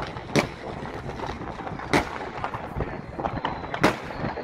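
Fireworks going off: three sharp bangs about a second and a half apart, the last the loudest, with smaller cracks and a steady crackle in between.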